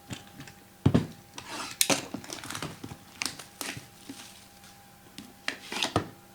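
Plastic shrink wrap crinkling and tearing as sealed trading-card boxes are unwrapped and handled, with several sharp knocks of the boxes being set down, the loudest about a second in and near the end.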